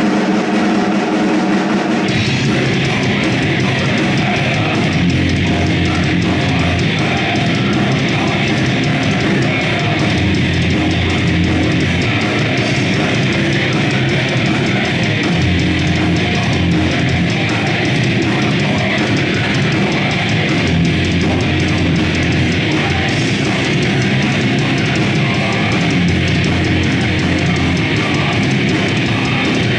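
Live heavy metal band playing: distorted electric guitars, bass guitar and a drum kit. The full band comes in about two seconds in and stays loud and dense.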